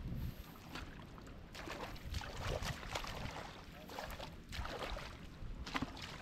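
Shallow rice-paddy water splashing and sloshing irregularly as fish are groped for by hand, over a low rumble.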